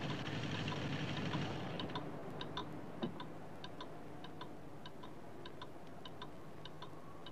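Regular clock-like ticking, about three sharp ticks a second in uneven tick-tock pairs, over a low hum. A rumbling noise fades out in the first second and a half, and a single louder knock comes about three seconds in.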